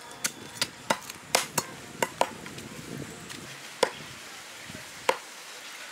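Heavy cleavers chopping goat head meat on a wooden log block: sharp, irregular chops, about seven in the first two and a half seconds, then two more spaced further apart.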